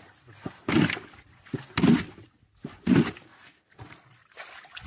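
A hand scooping and splashing water in a small rock pool: three loud sloshing splashes about a second apart, then softer dribbling.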